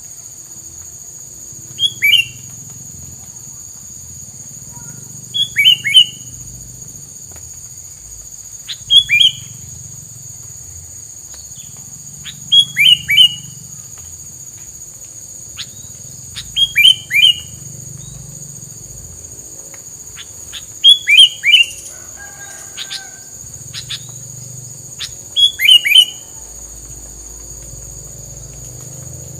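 Pied triller (tilang) calling: seven bursts of two to four quick, sharp, falling notes, repeated about every four seconds, over a steady high-pitched insect drone.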